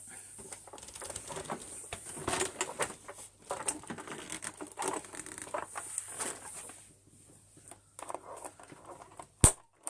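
Scattered clicks, knocks and rustling from handling an upright vacuum cleaner that will not start because the power is off at the wall, with one sharp loud click near the end.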